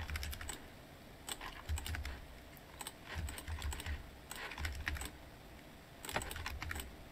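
Computer keyboard keystrokes in short clusters of a few clicks each, about five clusters with pauses between: Blender shortcuts such as Tab and Ctrl+R being pressed.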